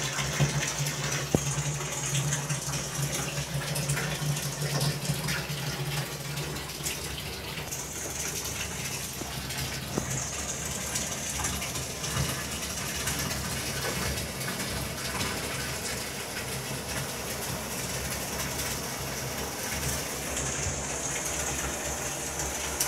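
Water running steadily from a tap, with a low hum under it that stops about seven seconds in.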